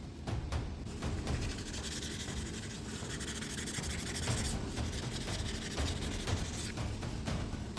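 Abrasive rubbing and scraping of carbon deposits off air compressor cylinder-head parts. It grows louder and denser from about two seconds in and eases off near the end.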